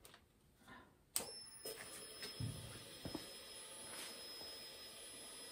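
Electric fuel pump of a remote bench fuel system switching on with a click about a second in, then running with a steady high-pitched whine as it pressurises the injector fuel rails. A few light knocks sound over it.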